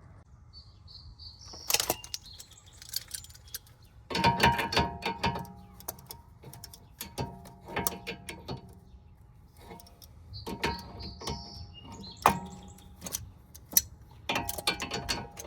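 Hand tools and metal parts clinking and rattling in several bursts, with a short metallic ring after the knocks. A bird chirps briefly twice, near the start and again about ten seconds in.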